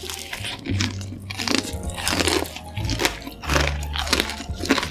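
Crunchy bites and chewing into a deep-fried, ramen-noodle-crusted sausage on a stick. The fried noodle crust cracks in a quick string of crunches, two or three a second.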